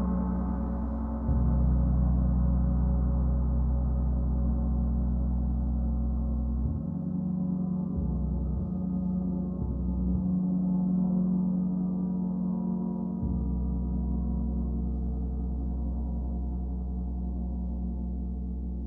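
Gong played continuously: a dense, sustained ring of many overlapping tones. Its deep hum changes abruptly several times while the upper ring slowly fades.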